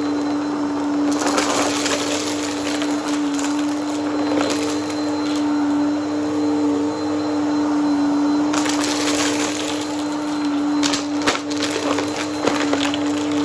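Vacuum cleaner running with a steady motor hum while it sucks up crunchy debris. Bursts of crackling come about a second in and again around nine seconds, with scattered sharp clicks near the end.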